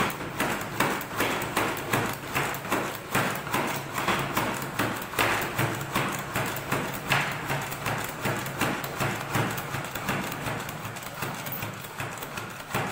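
Hand-operated push-down vegetable chopper being pumped: the plastic plunger knocking down again and again as its stainless steel blades chop vegetables in the plastic bowl. A steady rhythm of clacking knocks, about two a second.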